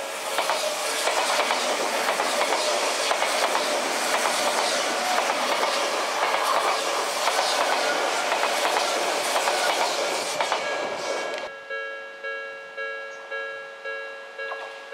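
Odakyu Line electric train passing over a level crossing: a loud rush and clatter of wheels on rails for about eleven seconds that stops abruptly. The crossing's electronic warning bell dings steadily in a repeating two-tone pattern, heard at the start and again once the train has passed.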